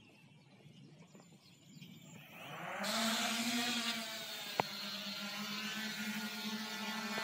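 Multirotor drone's electric motors and propellers spinning up with a rising whine, then a steady buzzing hum as it lifts off and climbs. A single sharp click comes about four and a half seconds in.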